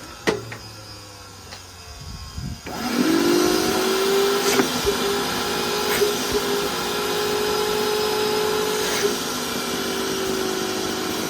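Industrial vacuum cleaner motor switching on about three seconds in and spinning up to a steady whine, with a few sharp crackles. The rotor armature winding is failing, and the owner thinks it may be arcing inside.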